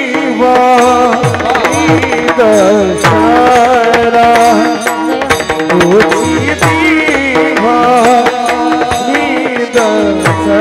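A male voice sings a Marathi devotional song in raga Bhairavi, with a wavering melody over steady held notes. Hand-drum strokes accompany it, their bass notes sliding down in pitch.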